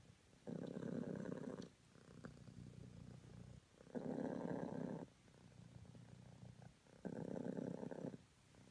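A cream British Longhair cat purring. The purr swells and eases with each breath: three louder stretches about three seconds apart, with softer purring between them.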